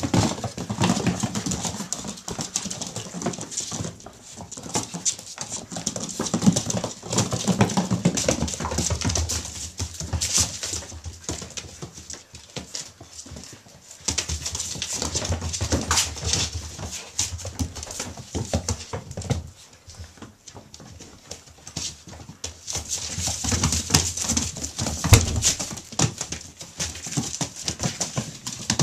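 A litter of six-week-old puppies playing rough together, with small growls and whines over the scrabble and click of claws on tile and rustling newspaper. The noise comes in busy spells with brief lulls.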